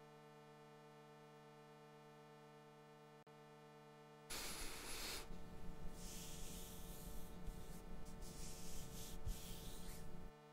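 A faint steady hum, then from about four seconds in a close, irregular rubbing rustle of a hand stroking and picking at a shaggy plush toy's fur, which cuts off suddenly near the end.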